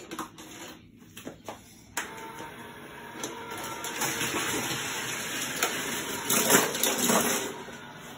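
A few light plastic clicks of toy cars being handled, then from about two seconds in the Hot Wheels Super Ultimate Garage's battery-powered spiral elevator running with a steady mechanical whir and plastic rattle, loudest a little before the end.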